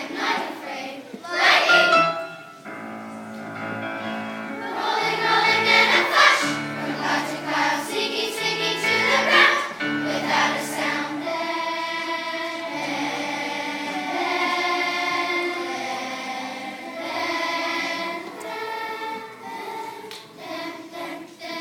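Children's choir singing a song with sustained, held notes.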